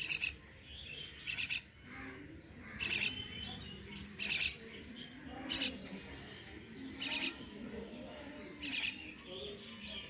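Indian myna repeating a short, high call about every second and a half, seven times.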